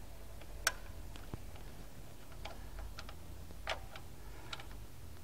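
A handful of light, scattered clicks and taps of small metal parts being handled and seated in a VW air-cooled engine's distributor while an electronic ignition module is fitted, the sharpest click under a second in, over a low steady hum.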